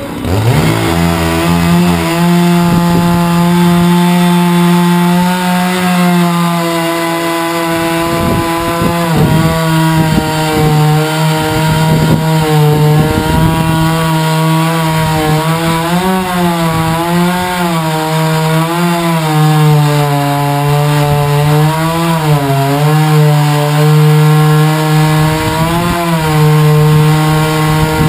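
Huztl-kit MS660-clone 99cc chainsaw in a Granberg 36-inch Alaskan-style mill, revving up to full throttle in the first second and then running under load as it rips a log lengthwise, its pitch wavering and dipping slightly as the cut goes on.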